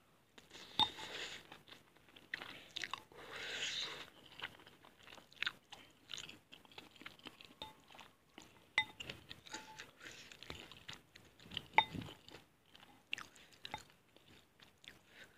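Close-miked chewing and slurping of mie goreng fried noodles: irregular wet mouth sounds with a longer slurp a few seconds in and a few sharp clicks.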